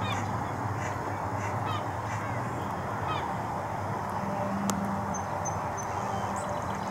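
Short, high whistled duck calls, each a quick falling note, repeating about once a second over a steady background hum.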